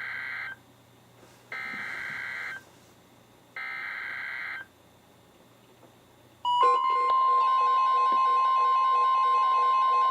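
NOAA Weather Radio SAME header: three one-second bursts of digital data screech, about two seconds apart, marking the start of a new alert. About six and a half seconds in, the weather radio's 1050 Hz warning alarm tone starts, loud and steady, with other tones switching on and off over it.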